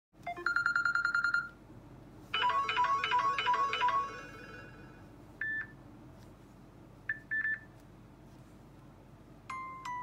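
Samsung Galaxy S7 stock ringtones previewed one after another: a fast ringing bell trill, a rhythmic pattern of electronic tones, a single short beep, two short beeps, and near the end a falling chime melody begins.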